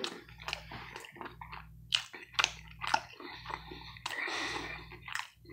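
Close-up chewing of a mouthful of soft DiGiorno pan-pizza crust, with many short wet mouth clicks. There is no crunch because the crust is soft.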